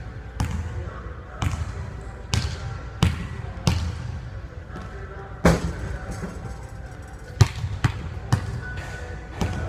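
Basketball dribbled on a hardwood gym floor: sharp bounces at an uneven pace of roughly one a second, each ringing briefly in the large hall, with one heavier bang about halfway through.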